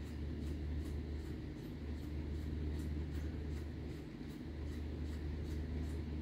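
Room tone: a steady low hum with a faint, fast, even ticking, about four or five ticks a second.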